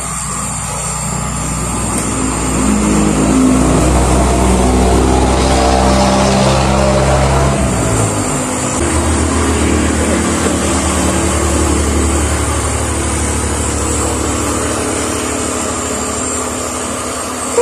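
Small handheld hair dryer running steadily, blowing warm air onto a wet cat's fur. Its hum changes tone about eight seconds in.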